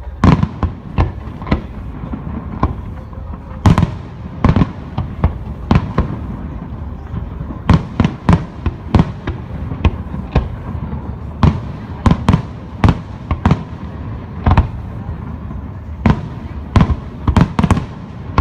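Fireworks display: aerial shells bursting in a loud, irregular series of sharp bangs, often one or two a second, some with a brief echo, over continuous background noise.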